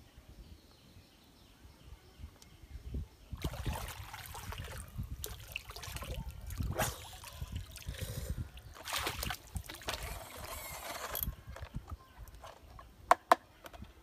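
Water splashing and sloshing as a person surfaces from chest-deep water and lifts a plastic toy truck out, with water trickling off it. Near the end come two short, sharp clicks.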